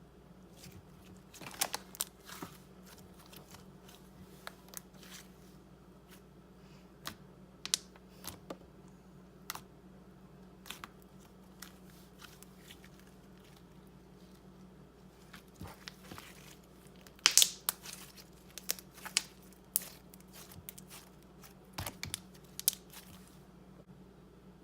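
Slime being kneaded and stretched by hand, giving off irregular sharp pops and crackles, with the loudest cluster about two-thirds of the way through.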